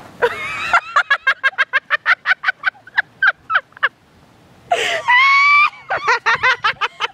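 Girls laughing hard in a rapid run of short 'ha' bursts, about five a second, opening with a shriek and broken by a louder, higher squeal about five seconds in.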